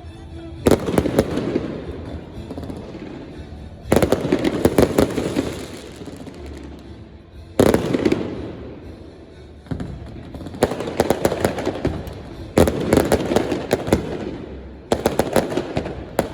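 Fireworks going off in a series of volleys, each starting with a sharp bang and trailing into dense crackling that fades over a second or two; about seven volleys in all.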